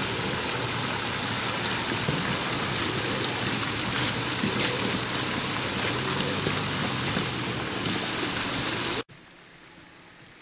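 Steady rushing outdoor noise with a few faint knocks. About nine seconds in it cuts off sharply to a much quieter hiss.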